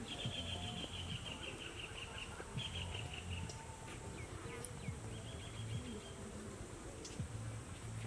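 Outdoor ambience with a high, rapid trilling call from a small animal in three runs of a second or two each, the second run falling slightly in pitch, over a low steady background.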